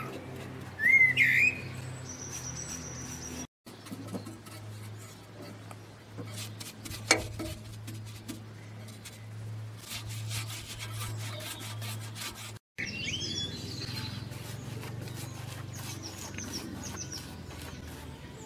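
Wild birds calling: a loud rising whistle about a second in, a high held whistle just after, and quick high chirps in the last few seconds, over a steady low hum. The sound cuts out for a moment twice.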